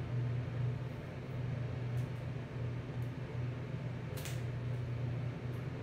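Steady low mechanical hum, with a few faint crisp ticks, the clearest about four seconds in.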